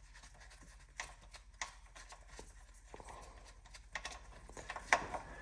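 A few faint, sharp clicks and taps of metal on metal, scattered a second or more apart, as the transmission fill plug bolt is backed out.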